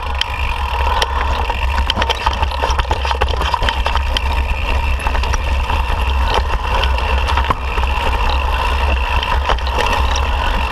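Wind buffeting a mountain biker's action camera as the bike runs down rocky singletrack, with sharp clicks and rattles from the bike over the rocks and a steady whine throughout.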